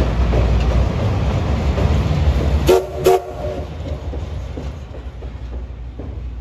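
A steam-and-diesel train rumbling and clattering over a steel girder bridge, then two short, loud blasts of the train's whistle about three seconds in, after which the rolling noise fades as the train pulls away.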